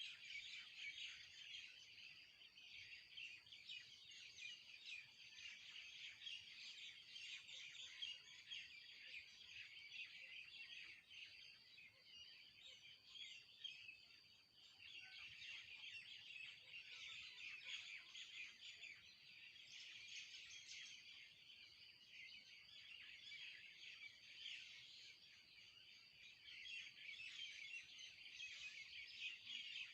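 A flock of small birds chirping densely and continuously, many overlapping quick chirps, faint, with a short lull about halfway through.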